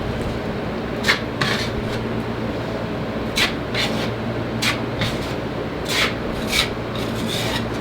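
Drywall knife scraping the wall in about ten short, sharp strokes at an irregular pace, over a steady low hum.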